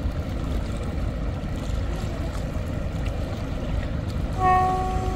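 Steady low rumble, then about four seconds in a river passenger launch's horn starts a loud, steady blast on one pitch with its overtones.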